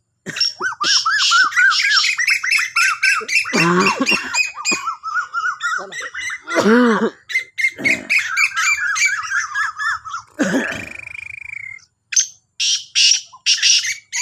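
Caged black francolins calling, harsh scratchy call notes repeated in quick succession with barely a pause.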